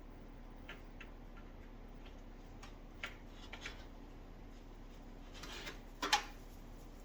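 Aquarium gravel rattling up a hygger siphon gravel cleaner's tube as scattered sharp clicks. A short rush and the loudest clatter come about six seconds in, as a plant and a bunch of gravel are sucked in.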